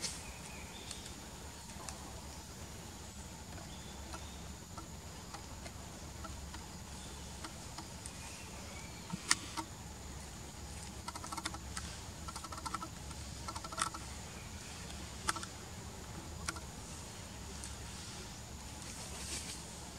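Forest ambience: a steady high-pitched insect drone, with scattered sharp clicks and crackles, most of them in the second half.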